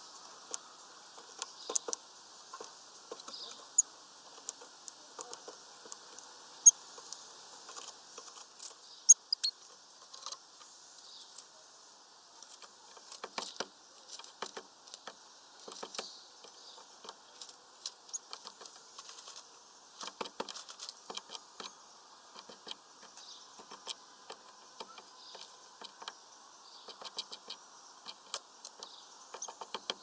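Great tit pecking and tapping at seeds on the wooden feeder perches: irregular quick taps and ticks, with a few sharp louder knocks in the first third.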